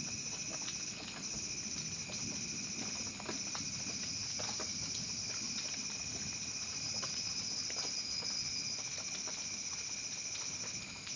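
Rain falling, with many irregular drops ticking and pattering over a steady high-pitched drone.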